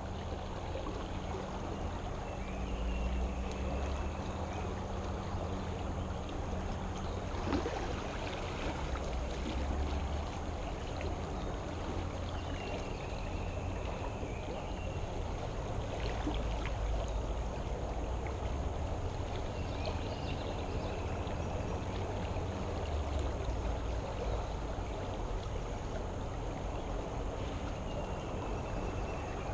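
Creek water flowing steadily out of a culvert, an even rushing and burbling. A faint short high call, likely a bird, comes a few times, several seconds apart.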